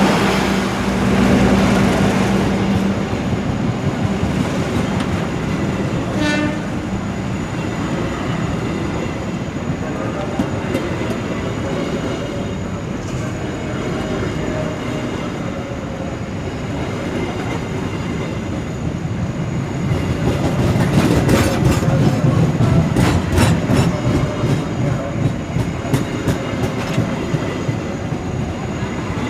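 Train running on the tracks: a steady tone in the first few seconds, then, from about two-thirds of the way in, a rhythmic clatter of the wheels over rail joints.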